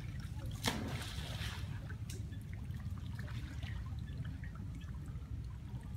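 Shallow floodwater splashing once, sharply, about a second in, then light trickling and dripping over a low steady rumble.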